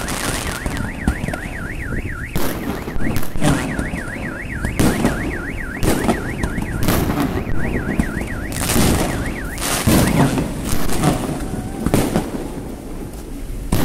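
Car alarm siren warbling rapidly up and down, about five swings a second, cutting out about ten seconds in. Fireworks bang repeatedly throughout.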